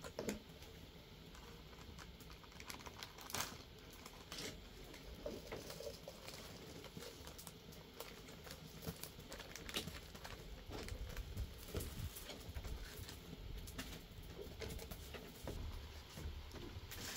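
Soft, irregular clicks and rustles of hands handling food in a small woven bamboo basket on a bamboo table, over a faint low background rumble.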